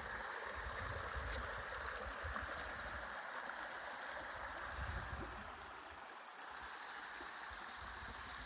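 Small snowmelt-fed mountain creek flowing over rocks, a steady rushing of water, slightly quieter near the end.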